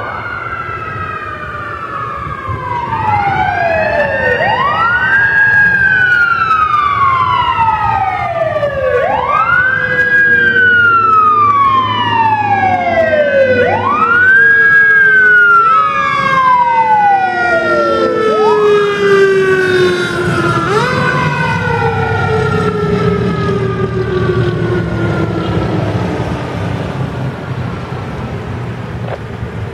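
Sirens of a fire engine and a rescue ambulance wailing on an emergency run. Each wail rises quickly and falls slowly, about every four to five seconds, with the two sirens overlapping over the trucks' engine rumble. The sound grows louder, peaks mid-way and fades near the end.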